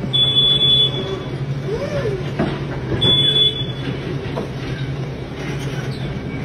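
Electric narrow-aisle forklift running with a steady low hum, sounding two short high-pitched warning beeps, one right at the start and one about three seconds in.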